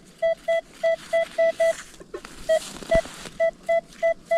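Minelab Manticore metal detector giving a quick run of short, identical beeps at one steady pitch, about three a second, as the coil passes over a buried target. A sharp knock breaks in about three seconds in.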